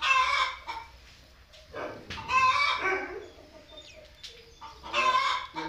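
Chickens calling: three loud bursts of clucking, the middle one the longest at about a second and a half.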